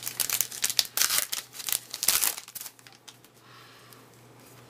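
Wrapper of a baseball card pack crinkling as it is handled and opened: a flurry of crackly rustles for about two and a half seconds, then it stops.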